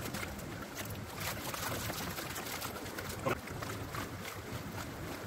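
Shallow creek water running steadily around a plastic gold pan held in the flow, with one brief sharper sound about three seconds in.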